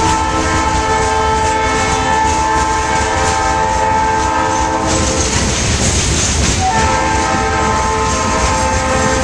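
Locomotive air horn sounding two long blasts, the second starting just under two seconds after the first ends. Under the horn runs the steady rumble and rail clatter of freight cars rolling past.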